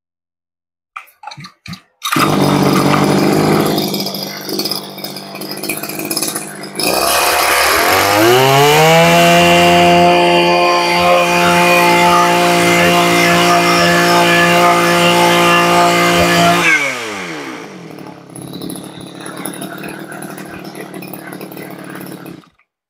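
Mitsubishi TL20 20cc two-stroke brush cutter engine pull-started, catching after a couple of short pulls and idling. About seven seconds in it revs up in a rising whine to full throttle and holds there steadily for about eight seconds. It then drops back to idle and is switched off near the end, running strongly throughout.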